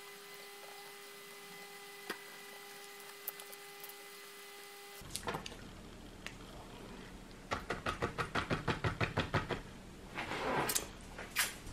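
A faint steady hum with an occasional click. Then, past the middle, a rapid run of about a dozen light knocks, some six a second, from a filled silicone gummy-bear mold being tapped on a stone countertop to settle the yogurt. A couple of louder knocks and rustles come near the end.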